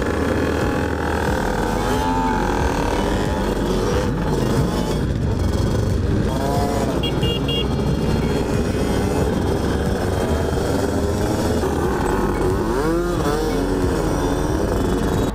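A pack of small motard motorcycles and scooters riding together, engines running steadily with several rev-ups and drops, the clearest around two, six and thirteen seconds in.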